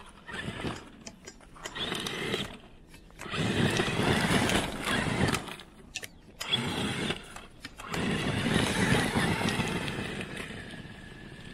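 Traxxas X-Maxx 8S RC monster truck's brushless electric motor and drivetrain whining in about five surges as it is throttled up and let off, its paddle tires churning through snow.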